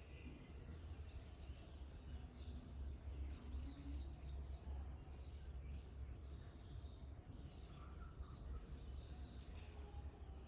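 Faint outdoor ambience: a steady low rumble under many short, high chirps of small birds.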